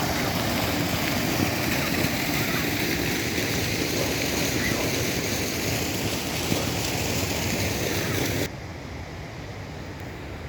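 Rushing water of a waterfall, a loud steady rush that drops suddenly to a quieter, duller rush near the end.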